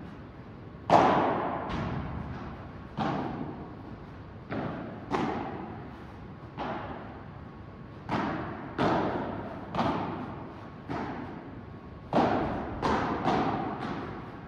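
A padel rally: the ball being struck by rackets and bouncing off the court and glass walls, about fifteen sharp hits, roughly one a second and closer together near the end, each echoing in a large hall. The loudest hit comes about a second in.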